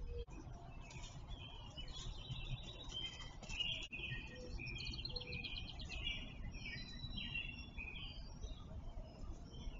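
Several small songbirds chirping and singing in quick twittering phrases, over a low steady rumble.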